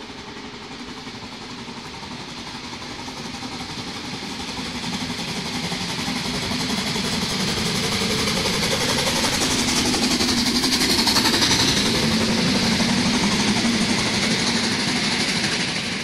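Narrow-gauge steam locomotive 99 234, a 2-10-2 tank engine, working steam as it hauls its train up to and past close by. The engine and running-gear noise grows steadily louder, peaking about eleven seconds in and staying loud as the locomotive goes by.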